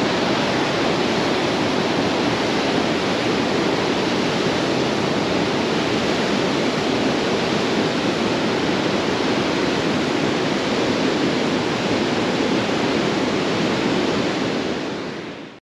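Niagara River rapids rushing steadily below the bridge, a dense, even wash of white-water noise. It fades out near the end.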